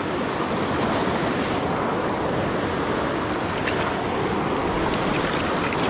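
River water rushing steadily, a constant loud wash close to the microphone.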